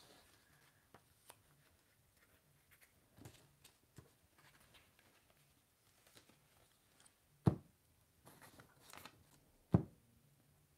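Soft rustling of paper cutouts being handled on a table, with two short sharp knocks, one about three-quarters through and one near the end, as a glue stick is taken up.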